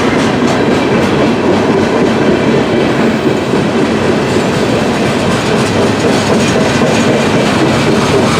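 CSX freight train rolling past, its cars' wheels clacking steadily over the rail joints.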